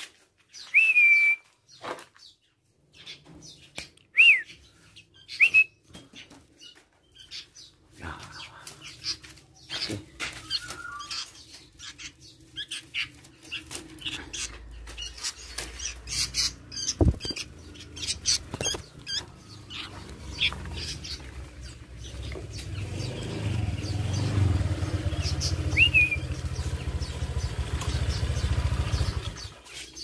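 Caged songbirds giving short, sharp chirps that sweep upward in pitch, three near the start and one near the end, among scattered clicks and rustles. About halfway through a bird flaps its wings, and a low rumbling noise builds over the last several seconds.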